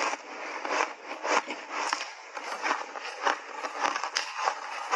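Block ice coated with milk powder being chewed, with a run of sharp, crisp crunches about twice a second.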